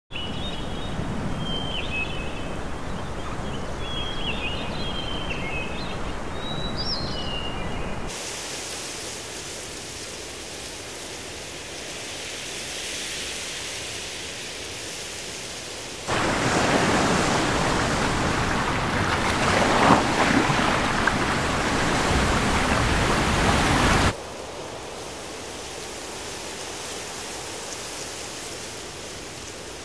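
Nature ambience in cut segments. For about eight seconds a low rumbling noise plays with short high chirps over it. Then comes a soft hiss, and from the middle a louder, even rushing noise for about eight seconds, which cuts back to a soft hiss.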